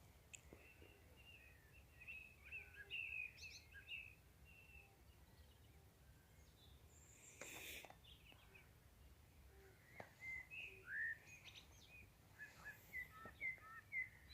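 Faint birds chirping in two bouts of quick, short calls, with a brief burst of noise about halfway through.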